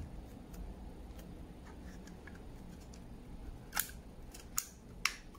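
Rubber bands being stretched and snapped around a small 3D-printed plastic mold to clamp its halves shut: faint handling clicks, then three sharp snaps near the end.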